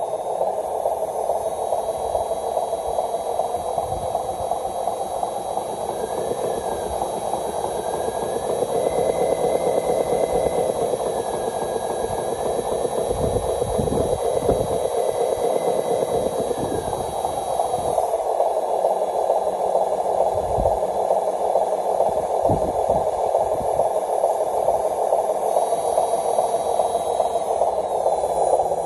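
Radio-controlled model dump truck's electric motor and gearbox running under load, a steady buzzing whine whose pitch shifts up and down in the middle as the throttle changes, with a few low thumps as the wheels go over the rough dirt.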